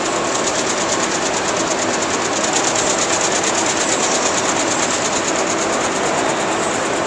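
Split-flap departure board clattering as its many flaps flip over in a fast, steady, dense rattle of clicks while the board updates.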